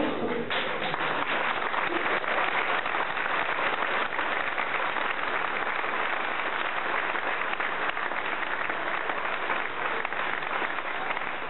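Theatre audience applauding: many hands clapping together. The applause breaks out about half a second in, holds steady, and dies away near the end.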